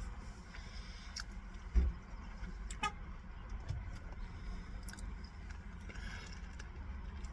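A steady low rumble, as of a vehicle or traffic, with a single thump just under two seconds in and a brief high toot, like a short horn beep, about a second later.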